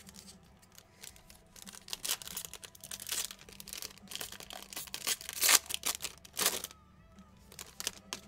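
Foil wrapper of a trading-card pack being torn open and crinkled by hand: a run of irregular crackling rips, loudest past the middle.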